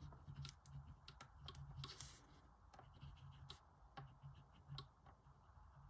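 Faint scratching and light tapping of a gel pen writing on paper, with one longer scratchy stroke about two seconds in.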